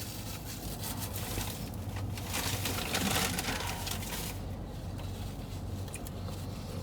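Rustling and scraping of takeout food packaging being handled, busiest around the middle, over a steady low hum.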